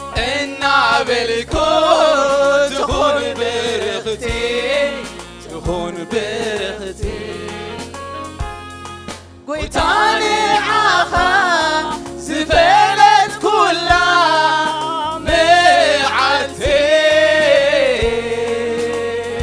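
Gospel choir singing a worship song over instrumental accompaniment with a steady beat, dipping briefly just before halfway.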